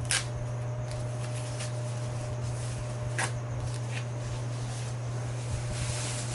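Thin plastic protective wrap around a Cricut Maker being handled and pulled open. There is a sharp click just after the start and another about three seconds in, with a brief rustle near the end as the wrap is drawn back. A steady low hum runs underneath.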